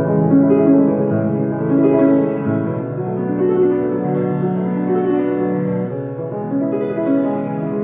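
Solo piano music: a slow piece of sustained, overlapping chords.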